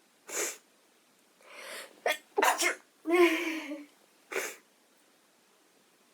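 A young woman sneezing in a fit she cannot stop. A short sharp breath comes first, then a drawn-in breath building up, then two loud voiced sneezes close together about two to four seconds in, and a last short breathy burst.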